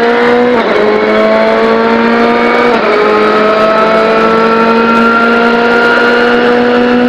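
Ford Fiesta WRC's 1.6-litre turbocharged four-cylinder engine at full throttle, its pitch climbing steadily. It dips briefly twice at quick upshifts, about half a second in and again near three seconds.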